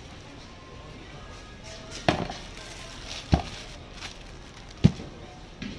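A large knife chopping pineapple on a cutting board: three sharp chops a second or so apart, starting about two seconds in, then a couple of lighter knocks near the end.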